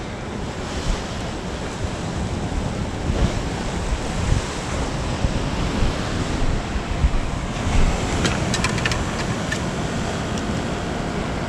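Wind buffeting the microphone over the steady wash of ocean surf, with a few light clicks and ticks about eight seconds in.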